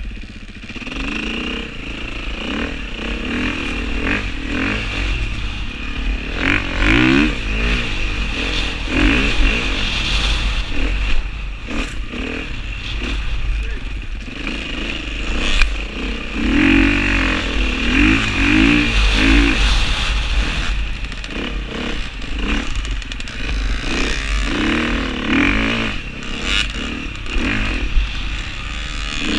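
KTM dirt bike engine under way, its revs climbing and dropping again and again as the throttle is worked, with a heavy wind rumble on the helmet-mounted microphone.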